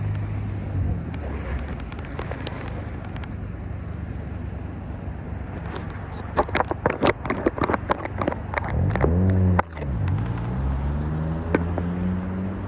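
A vehicle motor's steady hum. Its pitch drops sharply about nine and a half seconds in and then climbs again, as when it slows and speeds back up. A quick run of sharp clicks and rattles comes in the seconds before the drop.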